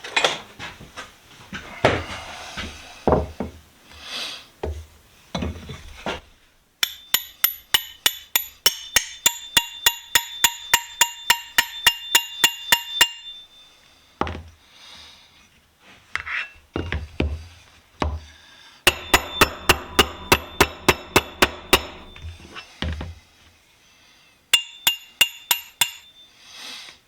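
Hammer striking steel to drive the lower jaw back into a Ridgid pipe wrench, in runs of quick ringing metallic blows about four a second, with scattered knocks and handling clatter between the runs.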